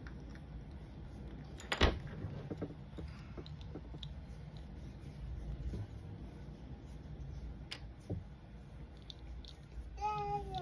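Plastic Lego bricks being handled and pressed together: scattered soft clicks and rustling, with one sharp click about two seconds in and another near eight seconds.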